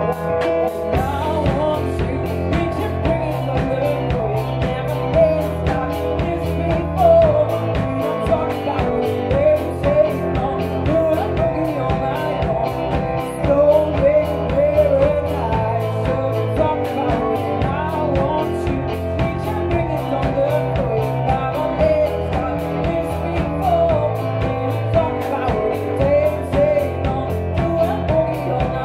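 A rock band playing live: a woman singing over electric guitar, keyboard and a steady drum beat.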